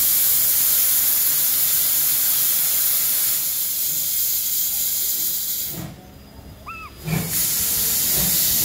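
Steam locomotive B 1429 pulling away, with steam hissing loudly from its open cylinder drain cocks. The hiss breaks off for about a second past the middle, then starts again.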